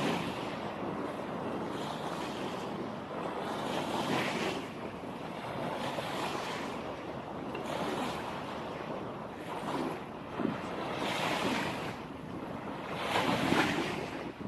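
Sea waves breaking and washing onto the shore, the surf swelling and fading every few seconds, with wind on the microphone.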